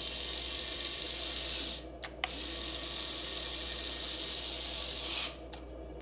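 Electric motor and gear drive of a Huina 1580 RC excavator working the bucket: a steady mechanical whine for about two seconds, a brief pause, then about three more seconds before it stops.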